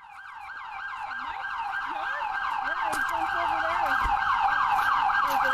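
Emergency vehicle siren on a fast yelp, rising and falling about four or five times a second, growing steadily louder over the first few seconds.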